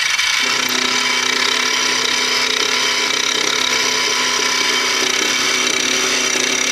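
Benchtop milling machine running, its roughing end mill cutting into aluminium bar stock on the final pass down to the depth stop. A steady mechanical whine and cutting noise, with a lower hum coming in about half a second in.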